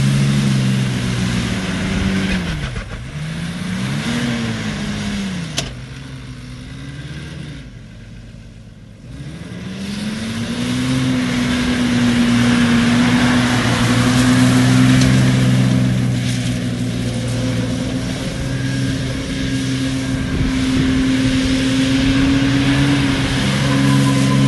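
Ram 2500 pickup's diesel engine revving as the truck is driven in circles: the revs drop and climb twice in the first few seconds, sink low about eight seconds in, then climb and are held high. There is one sharp click about five and a half seconds in.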